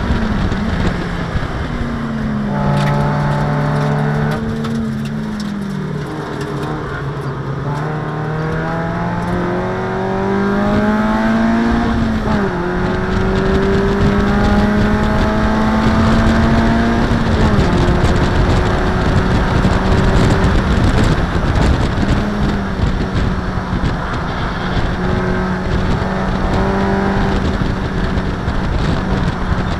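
Race car engine heard from inside the cockpit at racing speed. Its pitch falls over the first few seconds under braking and downshifts, then climbs through the gears with upshifts about 12 and 18 seconds in before holding fairly steady. Wind and road noise run underneath.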